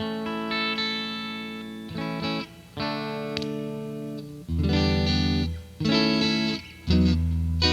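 Electric guitar played through a Fender Frontman 25R combo amplifier: chords and notes are struck and left to ring, with short gaps between them. Heavier, louder low chords come in about halfway through and again near the end.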